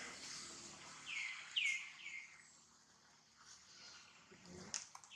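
A bird calling in short falling chirps, three in quick succession starting about a second in, over a steady high hiss. There is a brief rustle near the end.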